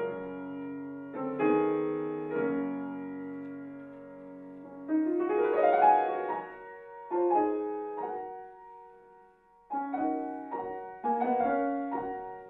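Grand piano played solo in a classical style: chords struck and left to ring, a rising run of notes about five seconds in, then a brief lull before more chords near the end.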